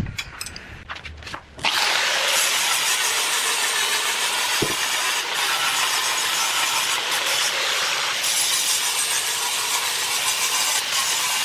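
Angle grinder with a grinding disc grinding down welds on a steel square-tube frame: a steady, loud hiss of disc on metal that starts about two seconds in, after a few light knocks.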